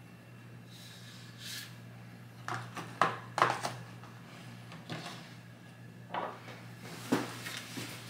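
Handling noises at a tabletop as a Japanese deba knife is put away in its wooden sheath and its box is handled. Several sharp wooden knocks and clatters come about three seconds in, and a few more follow later.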